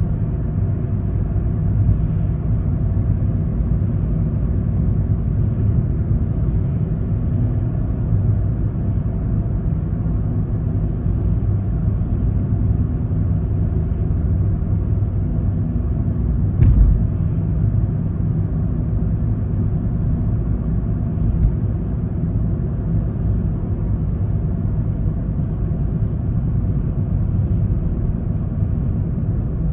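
Car driving at steady speed, heard from inside the cabin: a constant low rumble of tyre and road noise, with one short knock about halfway through.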